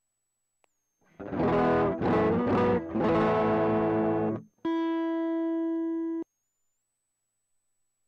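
Electric guitar played through an effects pedalboard: several chords struck over about three seconds, then a single held note that stops abruptly.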